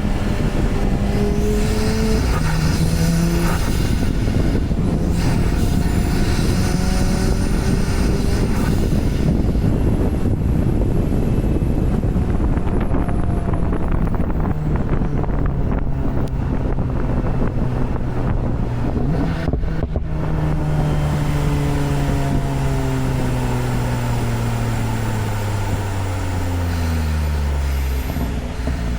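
Porsche 991 Turbo's twin-turbo flat-six engine driving on the road, with a steady rush of road and wind noise. The engine pitch steps between gears in the first few seconds, then falls steadily over the last third as the car slows.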